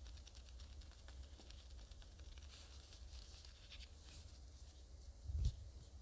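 Faint rustling and light taps of gloved hands folding and pressing fresh pasta dough on a wooden board, over a low steady hum. A dull thump comes near the end.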